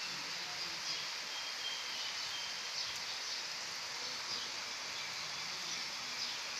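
Steady outdoor ambience: an even high hiss with a few faint, short high chirps about one and a half to two and a half seconds in.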